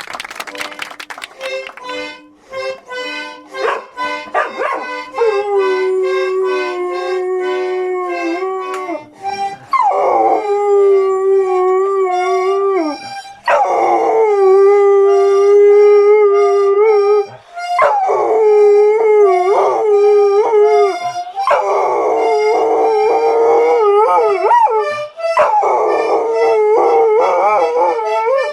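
A dog howling: a few short calls, then a run of about six long drawn-out howls, each held for several seconds with a slight waver in pitch.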